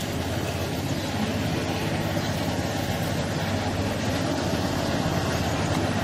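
Motor vehicle engine idling steadily, with street noise around it.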